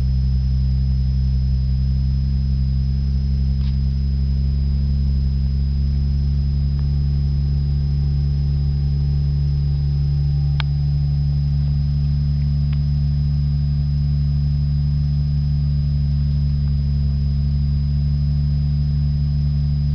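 Turbocharged Lexus IS300's 2JZ-GE inline-six idling steadily at about 1000 rpm on a ProEFI standalone ECU, still warming up after a cold start, heard from inside the cabin. A few faint clicks sound over the steady engine tone.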